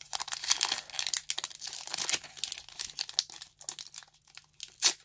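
Foil wrapper of a Pokémon booster pack crinkling and tearing as hands work it open, in quick dense crackles with a sharper one near the end.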